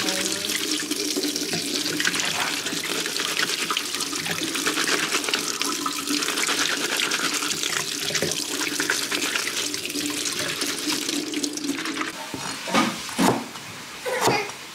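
Tap water running in a steady stream onto sliced chillies in a plastic colander, splashing into a stainless-steel sink as the chillies are rinsed. About twelve seconds in the water stops, and a few knife chops on a wooden cutting board follow near the end.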